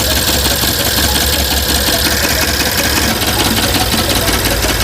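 BMW X5 M's S63 twin-turbo V8 running just after a cold start, with a rapid, crisp metallic tapping from inside the engine, like striking iron. The tapping comes from worn hydraulic lifters that leak down and no longer cushion the valvetrain.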